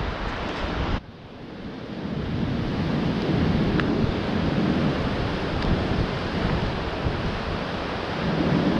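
Wind buffeting the camera's microphone, a heavy low rumble over the wash of surf. It drops away sharply about a second in, then builds back up and holds.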